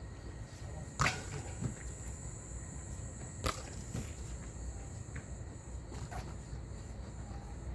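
Two sharp knocks about two and a half seconds apart, typical of a football being kicked on the pitch, over a steady low rumble of wind on the microphone and a faint thin high chirring like insects.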